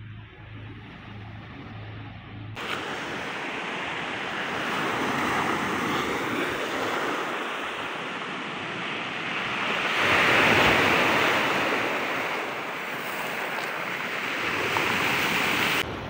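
Sea waves washing in on the beach, a steady rush that swells and ebbs, loudest about ten seconds in. For the first couple of seconds only a faint low pulsing hum is heard, and it cuts off abruptly.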